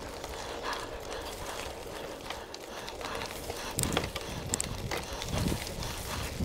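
Mountain bike rolling along a grassy dirt singletrack: steady tyre and air noise, then from about four seconds in a run of knocks and rattles as the bike jolts over the rough trail.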